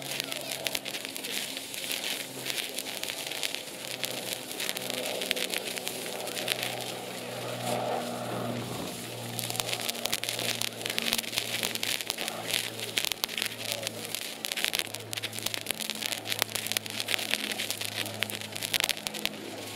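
Black Cat 1.21 Gigawatt crackling fountain burning, with a hissing spray and dense, irregular crackling snaps that grow thicker in the second half. A low steady hum runs underneath.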